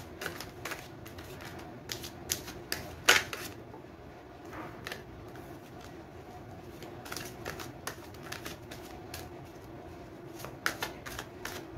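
Tarot cards being handled and shuffled: scattered sharp snaps and taps, the loudest about three seconds in, with a quicker run of them near the end.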